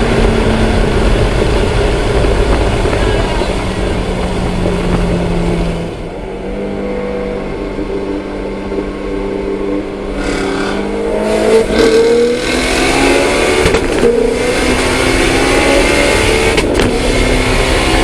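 Car engine running hard with a steady high note, easing off about six seconds in, then revving back up with its pitch climbing through the second half.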